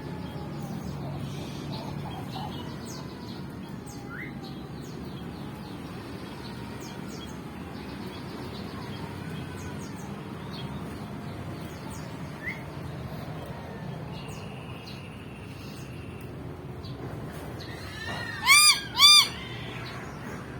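Caged songbirds chirping faintly, with a brief steady whistle in the middle. Near the end come two loud, short calls close together, each rising and falling in pitch.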